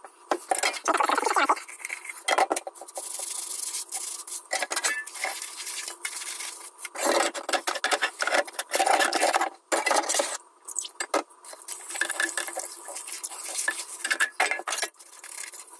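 Washing up by hand in a stainless steel sink: a sponge scrubbing a non-stick pan, with pans and utensils clattering in shallow dishwater. Near the end the soapy sponge is squeezed out over a pan.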